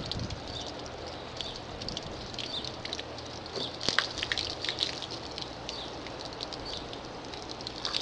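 Water from a hose splashing and dripping on a car's polished body, a steady hiss with many irregular small taps that cluster more densely about four seconds in.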